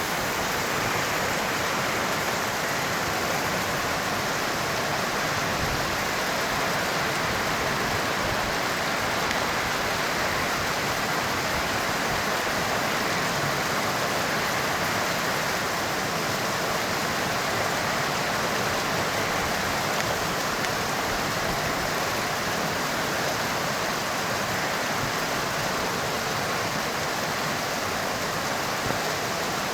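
Heavy rain falling steadily: a dense, even hiss at a constant level.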